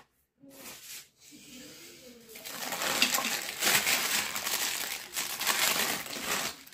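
Thin clear plastic bag crinkling and rustling as it is pulled open and peeled off a silicone mitt. It is faint at first and grows louder and denser with crackles from about two seconds in.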